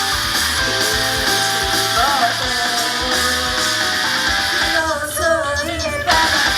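Rock-style idol-pop music with strummed electric guitar, loud and steady. A singing voice comes in about five seconds in.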